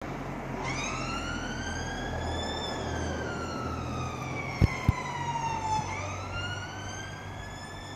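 Emergency vehicle siren wailing, slowly rising and falling in pitch: it climbs for about two seconds, falls for about three, then climbs again. Two sharp clicks stand out about halfway through.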